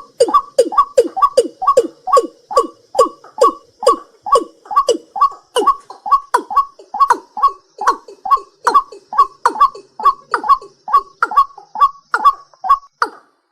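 A night bird calling over and over, about two and a half short downward-sliding notes a second, in a steady rhythm. Behind it runs a faint high, steady buzz, like insects, which stops near the end.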